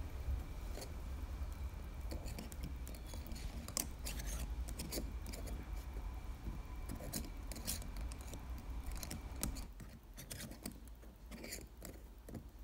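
Scattered small clicks and scrapes of a decorated lid being handled and twisted onto a mini glass mason jar, over a low hum that drops away near the end.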